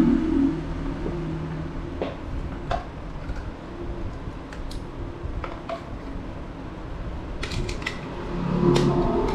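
Scattered small sharp clicks and taps over a steady low hum, with a quick run of clicks near the end.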